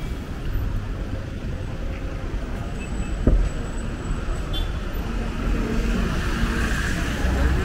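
Street traffic: cars, a minivan and motorbikes running and passing with a steady low rumble, and a single sharp knock about three seconds in.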